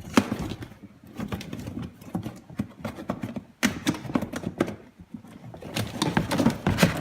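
Cardboard being folded and worked by hand: rustling and scraping with irregular sharp taps and clicks as a flap is folded around a tab and a cardboard shelf is pressed into its slot.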